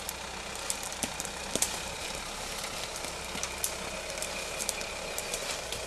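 Lifted Jeep Wrangler JL's engine running at low revs as it crawls up a slope, with scattered sharp cracks of twigs and forest-floor debris snapping under the tyres.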